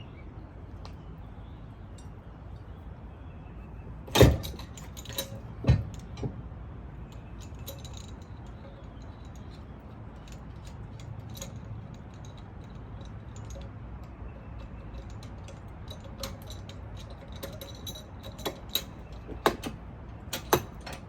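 Metal clanks and clinks of a hitch anti-rattle clamp and tools being handled and fitted on a trailer hitch receiver: two sharp knocks about four and six seconds in, then a run of small jangling clicks near the end.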